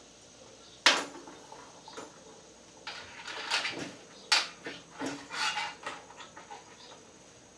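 Small metal chains and spring latches clinking against a stainless steel stock pot as an electric heating belt is hooked shut around it. A sharp clink about a second in, then scattered runs of lighter clinks and rattles.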